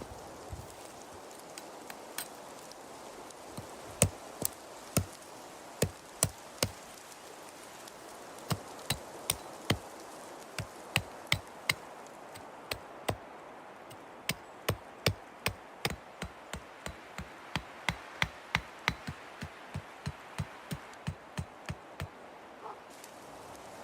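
Chopping: a blade striking wood in a long series of sharp knocks, spaced out at first, then coming quicker, about two or three a second, in the second half before stopping near the end.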